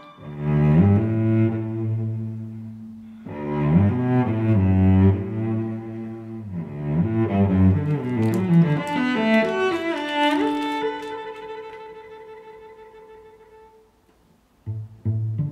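Background instrumental music: a melody in phrases with a short break about three seconds in. It fades away, and a new tune of short, separate notes starts near the end.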